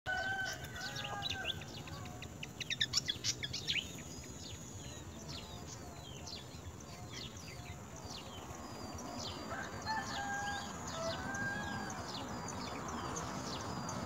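Nestlings begging in the nest with rapid, thin, high chirps, loudest in a burst about three seconds in. A lower, steadier bird call sounds at the start and again around ten seconds in.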